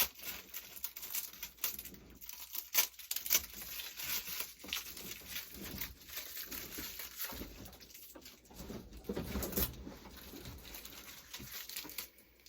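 Irregular tearing, crinkling and snapping as a string of Christmas lights is pulled down and handled, with a few duller knocks in the middle.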